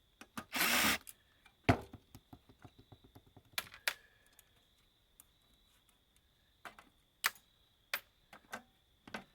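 Clicks and knocks of plastic and metal parts as a twin fan unit is worked loose and pulled out of an electronics housing. A short scraping rush comes near the start, then a sharp knock, a run of small ticks, and a few separate clicks toward the end.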